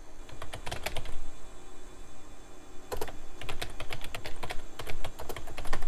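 Computer keyboard being typed on, a quick run of keystrokes and then, after a pause of about two seconds, a longer run as a DOS command is entered.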